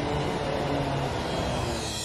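Steady city street traffic noise, with a double-decker bus's engine running close by.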